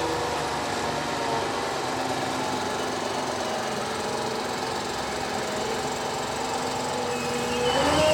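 Ropa Euro Tiger sugar beet harvester's V8 engine running steadily at work, its engine note rising near the end as it picks up revs.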